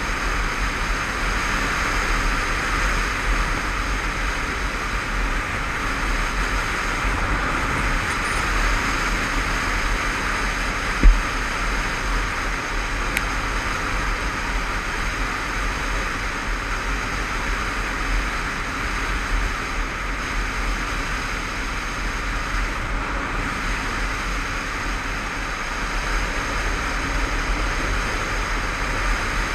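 Steady wind rush and road noise from a motorcycle riding at road speed, heard through a camera microphone carried on the bike and rider. A single short knock comes about eleven seconds in.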